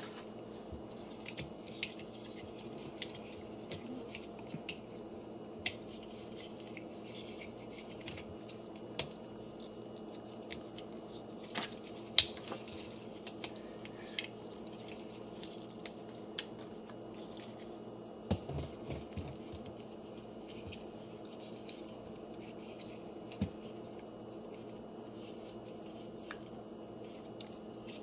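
Plastic joints and parts of a Transformers Twin Twist action figure clicking and snapping now and then as it is twisted by hand through its transformation, over a low steady hum.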